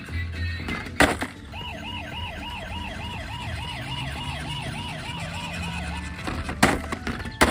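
Electronic siren of a toy emergency vehicle sounding a fast wail that rises and falls about three times a second for roughly four seconds. Sharp clicks come just before it starts and twice near the end.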